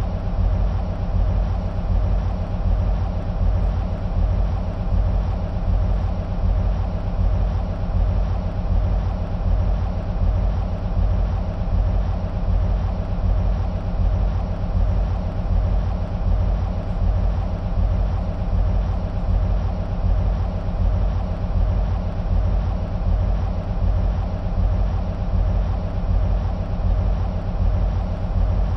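EMD SW1500 switcher locomotives idling, their 12-cylinder EMD 645 two-stroke diesel engines giving a steady low rumble with an even pulse.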